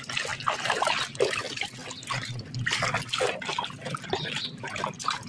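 Water splashing and sloshing in a basin as a hand scrubs a plastic toy train under the water, in uneven bursts.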